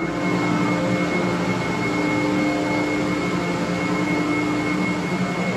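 Industrial air compressors running: a steady machine drone with a constant high whine over it.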